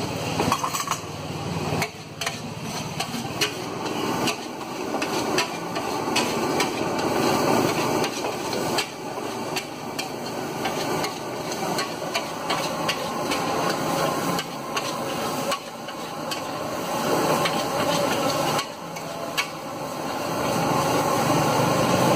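Metal spatula clanking and scraping against a steel wok as fried rice is stir-fried, in quick irregular strikes over a steady frying hiss.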